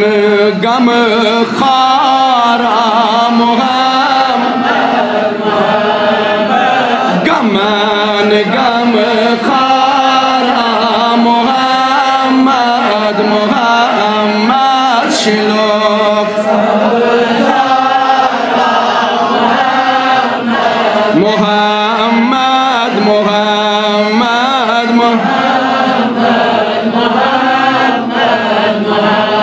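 A man singing a Kashmiri naat, an Islamic devotional hymn, in a drawn-out, ornamented style with long wavering held notes over a steady low drone.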